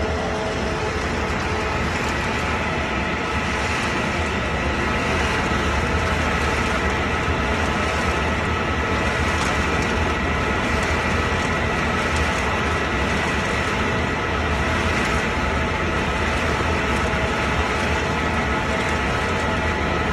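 Wood pellet production line machinery running steadily under power: a loud, even mechanical din with a low hum and several steady whining tones held throughout.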